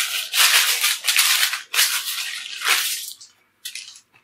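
Baking paper rustling and crinkling in a run of noisy bursts as the rolled dough lying on it is shaped. It falls quiet about three seconds in, then gives two short rustles near the end.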